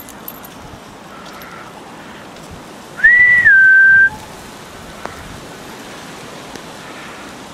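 A person whistling: one clear two-note whistle about three seconds in, a short higher note that drops to a longer lower one, the kind given to call dogs. A steady outdoor hiss lies under it.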